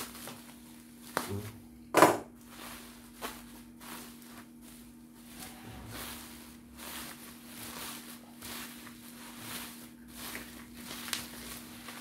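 Black bubble-wrap packaging being slit with a utility knife and unrolled by hand, rustling and crackling in irregular bursts, with one sharp loud snap about two seconds in. A faint steady hum runs underneath.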